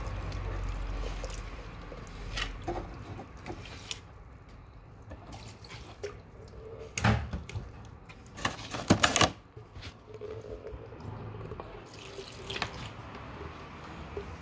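Water being poured onto potted houseplants, coming in short splashes and trickles, the loudest about seven and nine seconds in.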